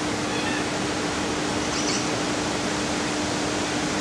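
Steady background hiss with a constant low hum, and a brief high-pitched squeak about two seconds in.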